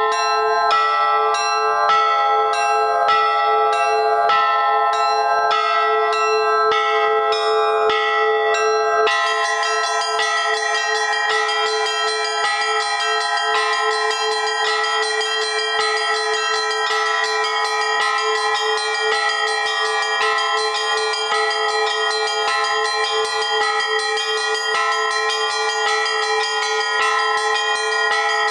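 Russian-style church bells ringing in a polyrhythm: middle-row bells struck in a four-beat rhythm while the small bells ring a three-beat rhythm over them, in the Rostov style. About nine seconds in, the ringing thickens into a dense, continuous peal.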